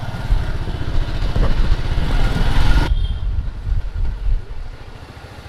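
Motorcycle engine running while riding, with a strong low rumble and rushing wind noise. About three seconds in it cuts off abruptly to a quieter, low street and traffic rumble.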